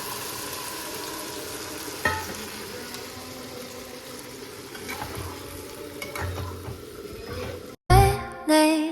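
Food frying in a pan with a steady sizzle, with a sharp utensil click about two seconds in and a few lighter knocks as it is stirred. Music cuts in about a second before the end.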